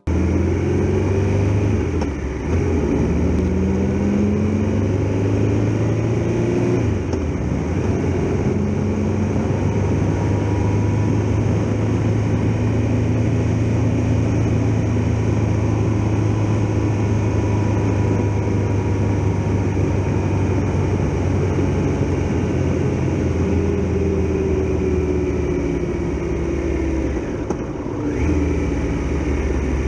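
Triumph Tiger Explorer XRx's three-cylinder engine running under way, heard from the bike itself. Revs climb and drop several times in the first few seconds as it shifts up, hold steady through the middle, then dip and pick up again near the end.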